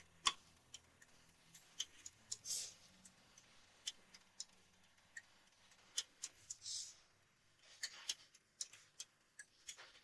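Faint scattered clicks and a few short hissy taps from an isolated heavy-metal drum track during a gap in the drumming, over a faint low hum.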